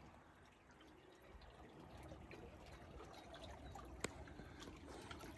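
Very faint river water trickling and lapping against the boat, with a single small click about four seconds in.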